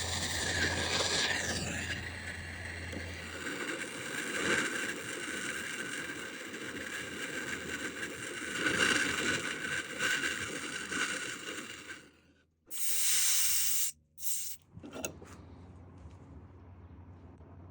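Turbo Torch burning MAP-Pro gas with a steady hiss while heating a copper tee joint for soldering. About twelve seconds in the hiss stops, then comes a short, louder hiss lasting just over a second and a couple of brief noises.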